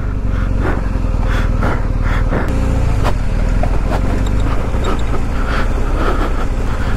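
BMW R 1250 GS boxer-twin engine running with a steady low rumble while the bike moves over a rough dirt track, with scattered knocks and rattles throughout.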